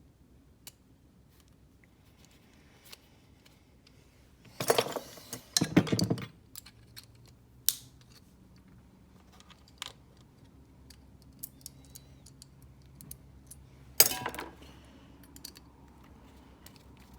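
Keys and a small pin tumbler cabinet lock being handled: scattered light metal clicks, with louder clinking rattles about five seconds in and again around fourteen seconds.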